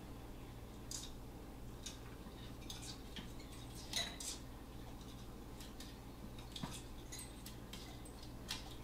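Faint, scattered clicks and light metallic clinks as a quince monitor lizard climbs among wire shelving and metal pots, its claws and body knocking against them. The loudest clink comes about four seconds in.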